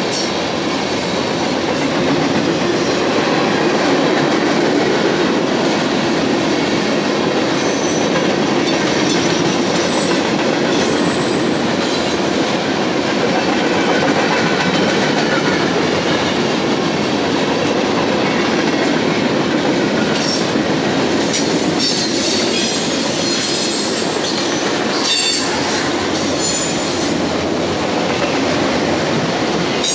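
Freight cars rolling past at close range (tank cars, a centerbeam flatcar, then autorack cars), their steel wheels rumbling and clattering steadily on the rails. Short high squeals come now and then, more often after about twenty seconds.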